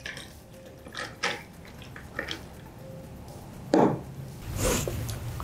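Milk tea poured from a glass jug over ice cubes in a tall glass: liquid splashing, with small clicks of ice against glass and a louder knock a little under four seconds in.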